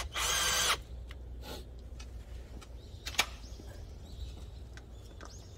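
Cordless drill-driver whining in one short burst of under a second as it undoes the nut on the car battery's positive terminal clamp. A single sharp click follows about three seconds in.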